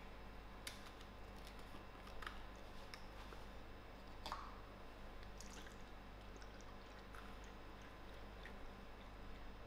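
Faint handling of a milk carton: a few soft clicks and crinkles as its plastic cap is opened and the carton is turned. Near the end, milk begins pouring into a cup.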